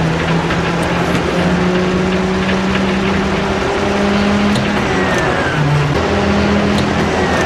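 Antonov An-2's nine-cylinder radial engine running, a steady loud drone with low tones that change pitch every second or two.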